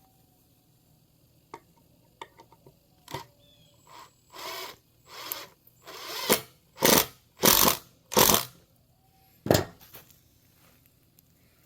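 A power drill driving a deck screw into wood in short trigger bursts, about seven in a row, growing louder, after a few light handling clicks.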